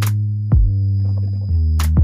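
Background electronic music: held bass notes over a kick-drum beat, with two sharp hits about 1.8 seconds apart.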